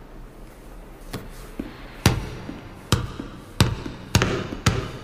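Basketball dribbled on a hardwood gym floor, each bounce a sharp thud with a hollow ring in the large hall; the bounces come quicker, from about one a second to about two a second near the end.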